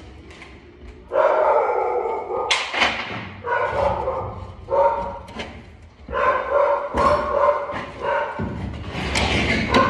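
A dog barking in drawn-out, howl-like barks, in several bouts, with a sharp knock about seven seconds in.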